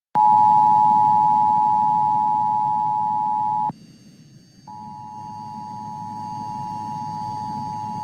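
Emergency Alert System attention signal: a steady two-tone alarm sounds for about three and a half seconds and cuts off. About a second later a single steady alert tone of similar pitch follows, over a low background hum.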